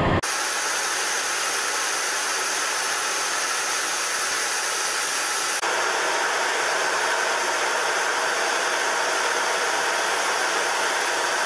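Steady rushing hiss of airflow and engine noise heard inside a military jet's cockpit, high and even with hardly any low rumble. It steps up slightly in level about five and a half seconds in.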